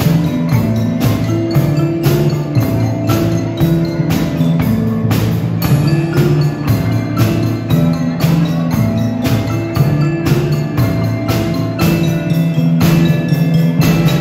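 A percussion ensemble playing marimbas with mallets: a steady, even pulse of struck notes over low bass notes.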